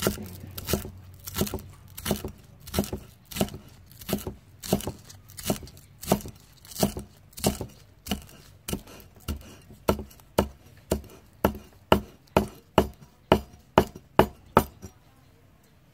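A steel cleaver chopping green onions on a round wooden chopping board, one even knock per stroke at about one and a half a second. In the last few seconds the strokes come faster and louder, then stop about a second before the end.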